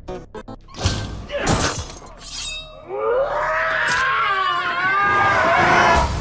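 Film trailer soundtrack: a few sharp impacts with a shattering crash in the first two seconds, then a loud wavering sound of several pitches bending up and down together for about three seconds, cutting off near the end.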